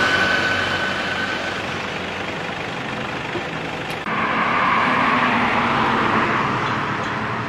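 Road traffic noise from vehicles going by on a street. A louder stretch of traffic noise starts abruptly about four seconds in.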